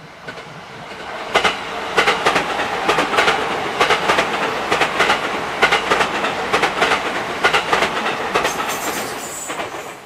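Electric multiple-unit passenger train passing close by. Its wheels click in a steady clickety-clack over the rail joints, the clicks often coming in pairs about once a second. The sound swells in over the first second or so and fades near the end as the last car goes by.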